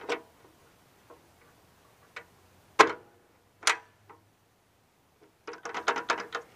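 Sharp metal clicks and knocks of a detachable luggage rack being clipped onto its posts at the back of a Harley Dyna's seat, a few single clicks, the loudest about three seconds in, then a quick rattle of clicks near the end.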